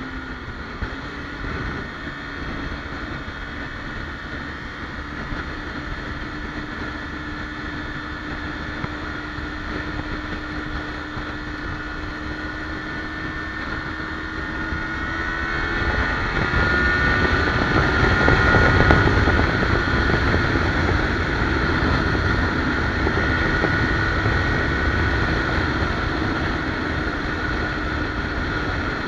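Kawasaki Ninja 300's parallel-twin engine running at highway speed, its pitch climbing slowly as the bike gathers speed, under heavy wind rush on the microphone. About fifteen seconds in, the engine note rises further and the wind rush grows louder.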